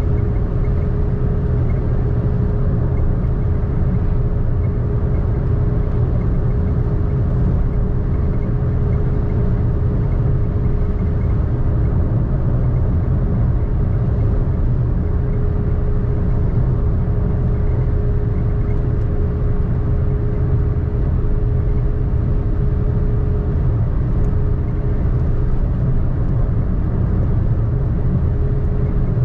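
A car being driven at a steady speed: a constant low rumble of tyres on the road and engine, with a steady hum running through it.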